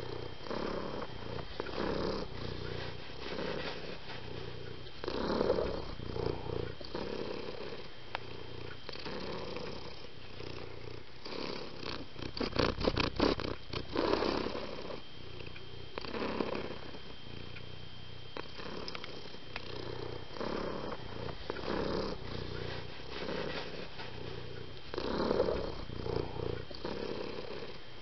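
Domestic cat purring steadily, swelling and easing with each breath. A short run of quick ticks comes about halfway through.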